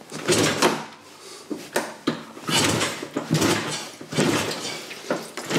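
Triumph Tiger T100 500 cc parallel twin being kicked over on the kickstart several times, on choke, for its first start after a top-end rebuild; each kick is a short burst of the engine turning over, and it does not fire because the ignition is not switched on.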